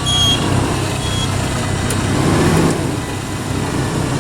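Off-road 4x4 vehicle engine running steadily at low revs.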